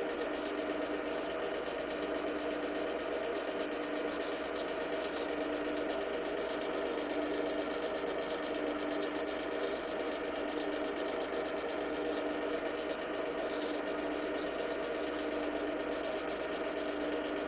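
8 mm cine film projector running: a steady motor hum with a fast, even clatter from the film transport.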